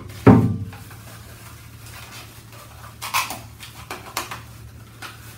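Loose parts of an electric stand grill being unpacked and handled: one loud knock about a third of a second in as a part is set down, then lighter clatters and rustles around three and four seconds in, over a steady low hum.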